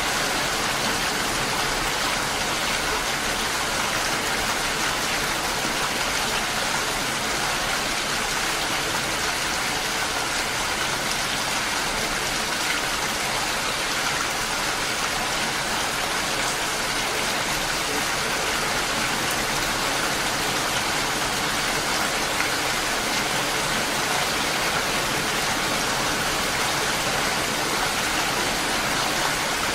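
Steady rain falling, an even unbroken hiss with no single drops or gusts standing out.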